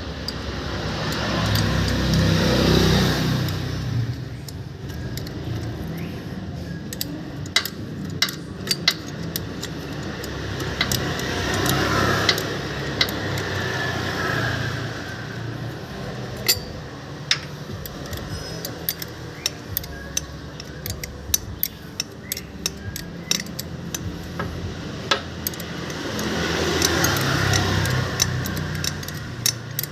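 Metal tools and motorcycle parts clicking and clinking during repair work, with three swells of vehicle engine noise of a few seconds each.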